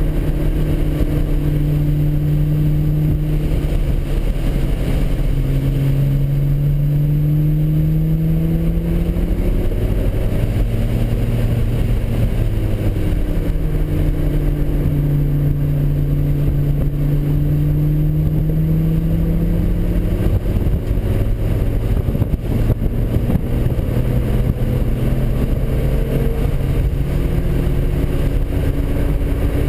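Nissan 300ZX Z32's twin-turbo V6 heard from inside the cabin, driving hard on track. Its revs climb and fall back several times over a steady rush of road and tyre noise.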